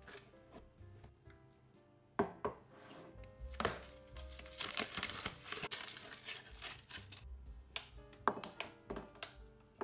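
Paper and foil wrapper of a chocolate bar crinkling and tearing as it is opened, then a few sharp snaps near the end as the dark chocolate bar is broken into pieces. Soft background music plays throughout.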